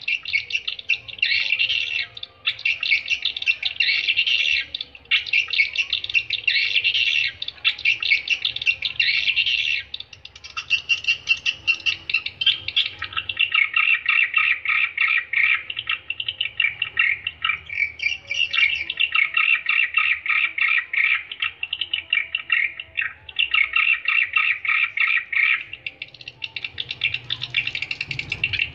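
Swiftlet lure call: dense, rapid chirruping twitters of edible-nest swiftlets, broken by short pauses every few seconds.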